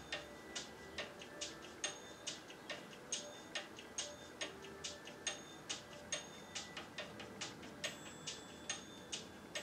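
A clock ticking steadily and faintly, a little over two ticks a second.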